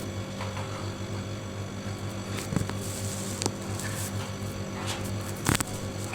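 A steady low electrical hum with a few light clicks and knocks scattered through it.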